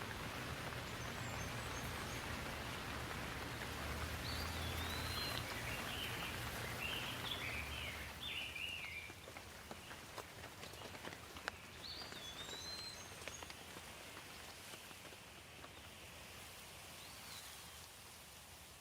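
Steady rain falling, heavier in the first half and easing off after about eight seconds, with a low rumble under the heavier part. A bird chirps in a quick run of short calls in the first half and a few more times later.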